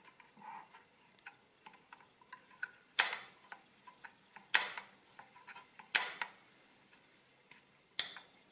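Toothed metal number wheels of a Quixsum fractional adding machine's mechanism being turned by hand, giving a run of small light ticks. Four louder sharp metallic clicks come at intervals of about a second and a half to two seconds.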